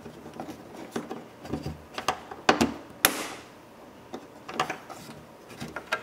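Light clicks and knocks of the door handle and its linkage rod being worked loose by hand inside the door opening, with two sharper clicks about two and a half and three seconds in.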